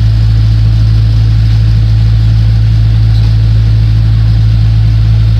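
Loud, steady low hum that does not change.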